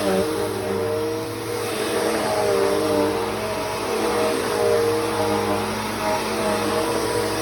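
Bissell CleanView 3536 upright vacuum cleaner running steadily in use, its motor hum wavering slightly in pitch.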